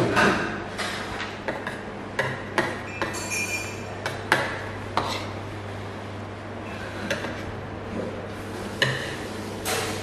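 Metal forks and spoons clinking and tapping against plates and a frying pan while eating, in scattered sharp clicks at irregular intervals, over a steady low hum.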